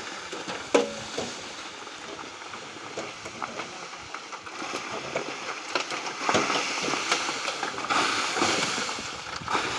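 Wet concrete being poured and worked for a house floor slab: sloshing and splattering, with scattered knocks, getting louder from about six seconds in.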